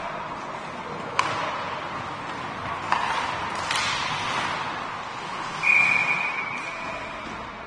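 Hockey rink sounds: two sharp clacks about a second and three seconds in, a short scraping rush near four seconds, then a referee's whistle blown once near the end, a single steady high tone lasting over a second and fading.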